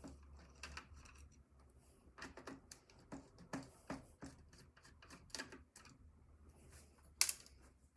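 Irregular small clicks and taps of a screwdriver, screws and computer parts being handled during disassembly, with one sharper click about seven seconds in.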